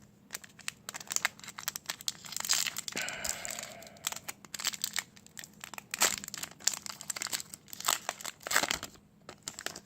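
Trading card booster pack wrapper being torn open and crinkled, with many sharp crackles as the wrapper is handled.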